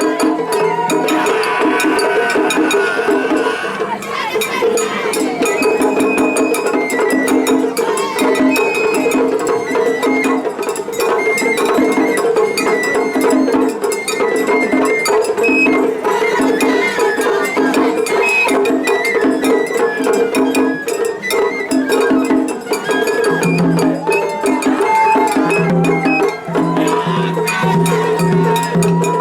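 Japanese festival hayashi music from two ensembles playing against each other in a seriai. A shrill bamboo flute line wavers over a dense, steady rhythm of drums and a clanging hand gong.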